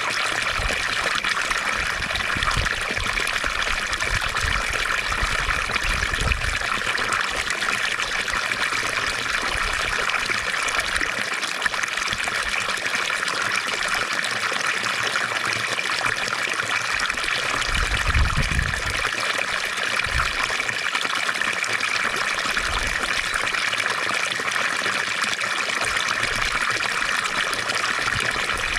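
Water from a fountain splashing and trickling in a steady, unbroken flow, with a few deeper surges now and then.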